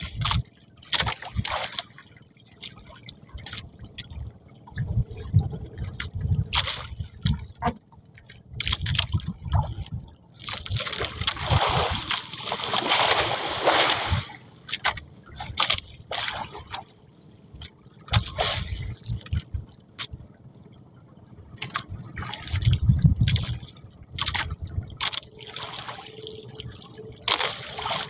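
Water sloshing and splashing, with a louder rush of splashing about halfway through, among scattered knocks and clatter.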